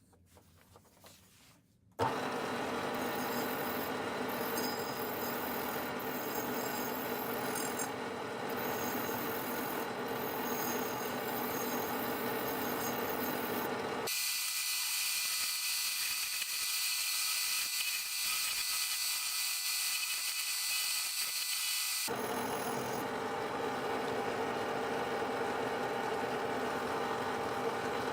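A power tool starts suddenly about two seconds in and runs steadily. For a stretch in the middle its lower sound drops away, leaving a harsher, higher hiss, before the fuller sound returns. It cuts off abruptly at the end.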